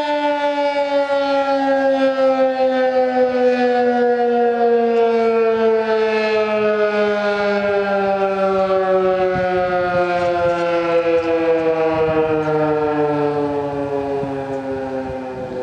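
Federal Signal 2001-SRN electromechanical siren winding down, its single tone falling slowly and steadily in pitch as the rotor coasts.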